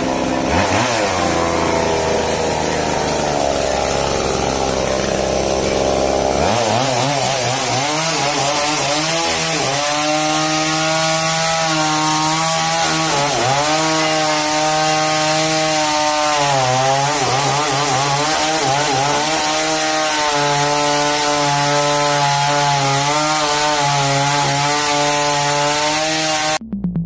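A two-stroke chainsaw running at high revs while cutting through the limbs of a fallen tree, its engine pitch dipping and recovering as the chain loads in the wood. The sound changes about six seconds in and cuts off suddenly near the end.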